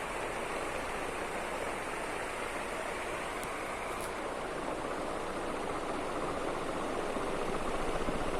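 National F-560A1 ceiling fan running: a steady rush of air from the spinning blades.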